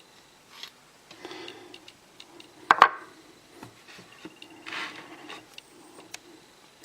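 Light metallic clicking and scraping of a screwdriver and small lock parts as a lock cylinder is taken apart, with one sharper click near the middle and a short scrape a little later.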